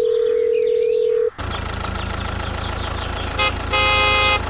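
A steady single-pitched beep for a little over a second, then a small tractor engine starts running with a low, rapid chug. Over it a horn toots briefly and then sounds for longer near the end.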